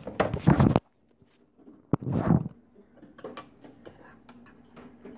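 Kitchen utensils and small dishes clinking and tapping, with a quick scatter of light clicks in the second half.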